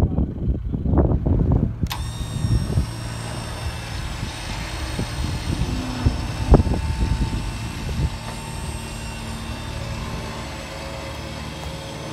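Wind buffeting the microphone, then from about two seconds in a motor starts and runs steadily with a hum and a hiss. One sharp knock sounds halfway through.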